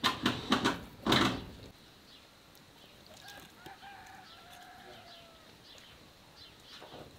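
Paper crinkling in a few short, loud bursts during the first second and a half as it is pressed into a clay pot, then a chicken calling faintly in a drawn-out, wavering call from about three to five and a half seconds in.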